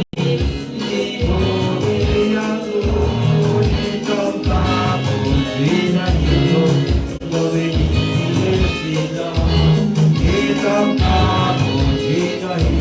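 Gospel praise-and-worship music: singing over a band with a steady beat.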